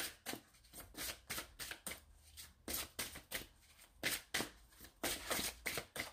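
Deck of cartomancy cards being shuffled by hand: a quick, irregular string of soft card slaps and rustles, several a second, coming in small clusters.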